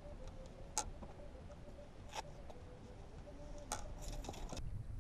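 A few sharp, faint clicks and taps of fishing rod and reel being handled on a boat: single clicks about a second and a half apart, then a quick cluster of them near the end, over a faint low rumble and a faint steady hum.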